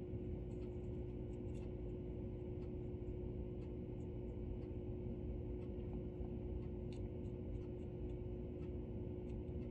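Quiet room tone: a steady low hum with a faint steady tone, and a few faint, scattered soft ticks.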